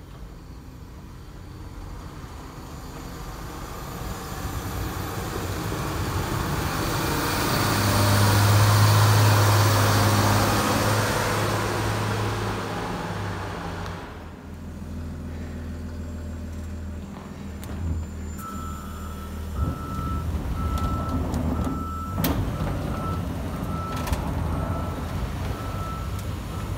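Tucker Sno-Cat's engine running as it comes closer, growing louder to a peak about a third of the way in, then falling off. Past the middle, its backup alarm starts beeping over and over in a steady high tone, the sign that the machine is reversing.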